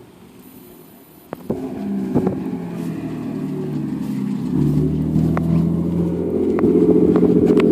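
RB20 turbo inline-six swapped into a Nissan 240SX running, coming in about a second and a half in and growing louder around four and a half seconds, then holding a steady note.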